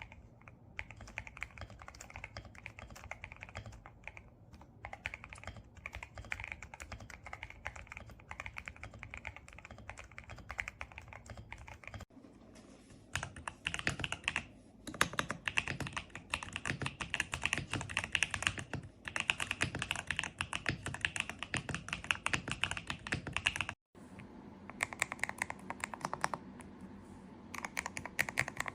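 Typing on a GMK67 65% mechanical keyboard: a fast, continuous run of key clacks, in three stretches broken by short gaps about 12 and 24 seconds in.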